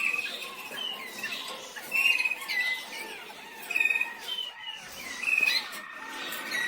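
Canaries chirping and calling in short, bright notes that repeat at irregular intervals.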